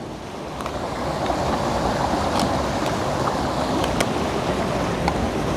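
Steady rushing water of a waterfall, swelling over the first second and then holding even, with a few faint clicks.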